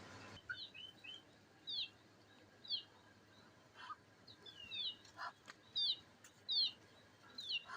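A bird chirping: short, high, downward-sliding chirps repeated about once or twice a second, with a few faint knocks between them. A steady rumble cuts off just before the chirping starts.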